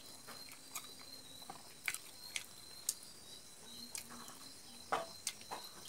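Eating by hand: scattered soft, wet clicks and smacks of fingers working rice and meat curry and of mouth sounds, the strongest about two seconds in and near the end, over a faint steady high-pitched tone.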